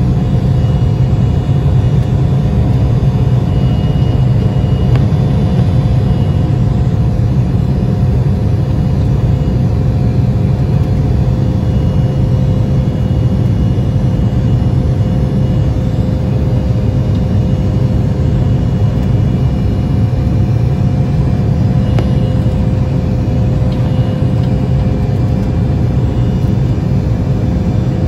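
Cabin noise inside an Embraer E175 climbing after takeoff, from the wing-mounted GE CF34-8E turbofans at climb power. A steady low rumble runs throughout, with a couple of steady humming tones above it.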